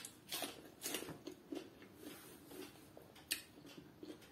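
A person biting into a piece of green vegetable and chewing it: faint, scattered short crisp clicks, the sharpest about three seconds in.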